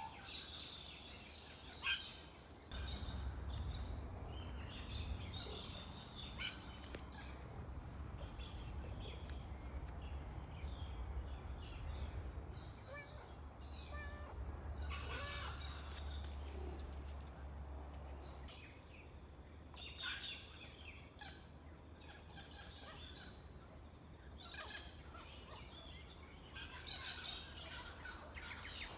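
Birds calling and chirping, many short scattered calls throughout, with a low steady rumble underneath for about the first half that stops partway through.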